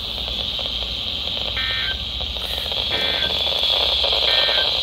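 A weather radio's alert buzzer sounding a steady shrill tone. Over it come three short warbling data bursts about 1.3 s apart: the EAS/SAME digital header that opens a NOAA Weather Radio alert.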